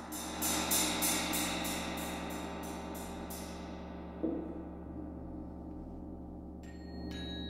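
A large gong played with a mallet in rapid strokes, about three a second, swelling and then left to ring and slowly die away, with a light knock about halfway. Near the end, bright pitched notes struck with mallets begin.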